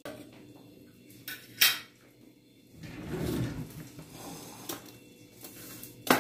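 A pastry brush rubbing oil over a metal baking tray, with several sharp knocks and clinks of the tray and utensils. The loudest knock comes about a second and a half in, and another near the end.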